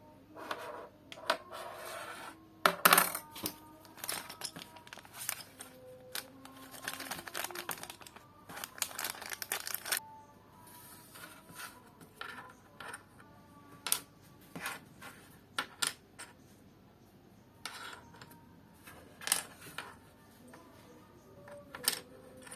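Irregular clicks and clatter of small hard plastic pieces being handled, with two stretches of rustling, the loudest clack about three seconds in.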